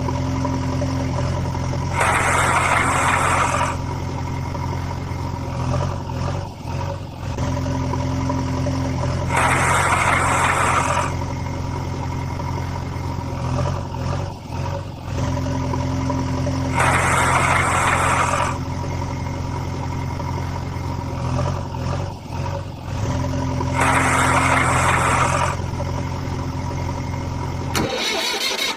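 Heavy-vehicle engine idling steadily. About every seven and a half seconds a louder rushing burst lasting under two seconds is heard, four times in an identical pattern like a looped sound effect. The low engine sound drops out briefly near the end.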